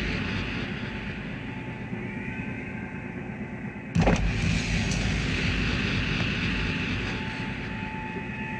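Car engine running with a steady low rumble, and one sharp thud about four seconds in.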